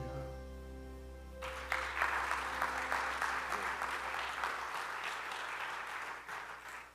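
The song's accompaniment ends on a held chord, then the congregation applauds for about five seconds. The applause stops abruptly near the end.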